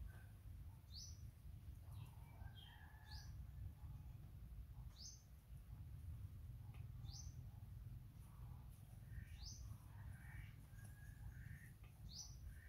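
Faint birdsong: one bird repeats a short, high, rising call about every two seconds, with softer chirps from other birds between, over a low steady rumble.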